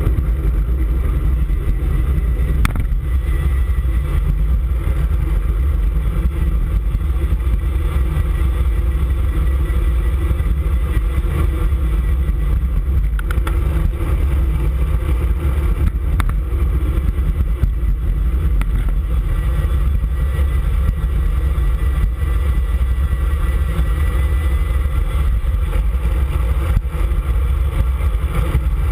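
Steady wind buffeting and road rumble picked up by a camera on a moving road bike's handlebars.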